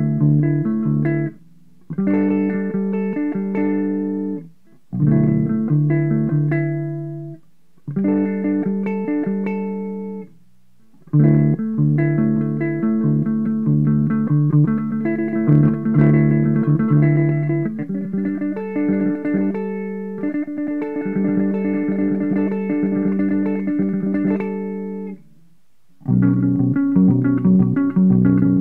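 Seven-string electric guitar being improvised on, with notes and chords ringing in phrases broken by short pauses of about a second; the longest phrase runs some fourteen seconds.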